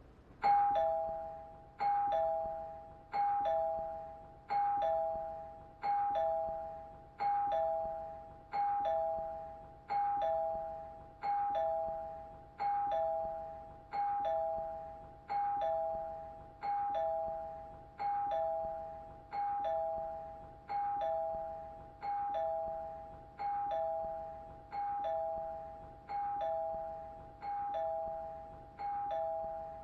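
Two-tone doorbell chime ringing over and over: a higher 'ding' followed by a lower 'dong', repeating about every second and a half without a break. It grows slowly quieter.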